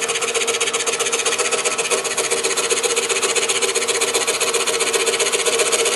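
DeWalt scroll saw running, its fine reciprocating blade cutting slowly through thin wood: a steady, rapid rasping buzz over a constant hum.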